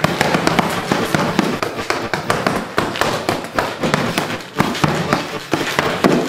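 A heavy punching bag being punched by fists in padded glove-style easy hand wraps: a fast, uneven string of sharp smacks, about three a second.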